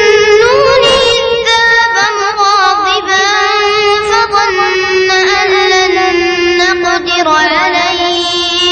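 A boy's voice reciting the Quran in a slow, melodic chanted style, drawing the phrases out into long held notes that slide in pitch.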